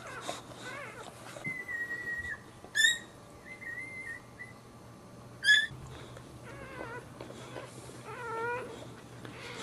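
Newborn boxer puppies squeaking and whining in high, wavering cries, with some long, thin, steady whines. Two sharp squeals, about three and five and a half seconds in, are the loudest.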